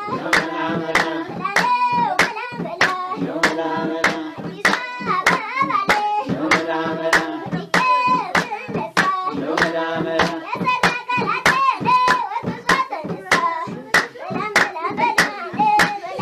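Voices singing a song over a steady rhythm of hand claps, about two claps a second.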